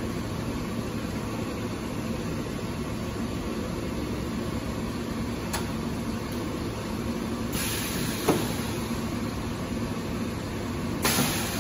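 Rotary high-frequency blister welding and cutting machine running with a steady hum and a low tone. Twice, about seven and a half seconds in and near the end, there is a hiss of air ending in a clunk as the press cycles.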